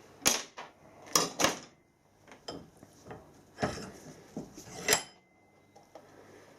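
Metal workshop tools being handled and set down on a bench: several sharp clanks and clinks, the loudest about a second in and again near five seconds, with light scraping between.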